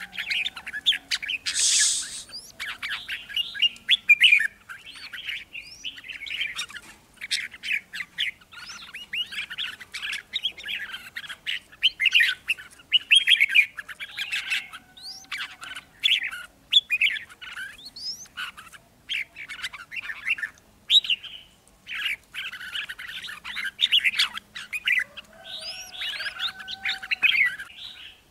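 Red-whiskered bulbuls, caged decoy birds, singing and calling in a dense run of short, bright chirps and quick rising notes with hardly a pause. This is the territorial song used to lure wild bulbuls to the trap.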